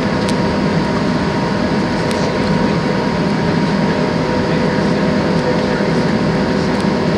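Steady cabin noise of a Boeing 737-700 taxiing, heard from inside the cabin: its CFM56-7B turbofan engines running at low taxi power with the air-conditioning flow, a continuous rumble and hiss with a faint steady whine.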